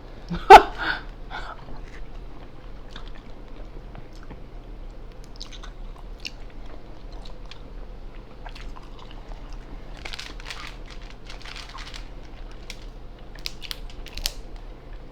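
Eating a seafood boil close to the microphone: crab leg shells cracking and chewing, with one sharp, loud crack about half a second in, then scattered smaller cracks and mouth sounds.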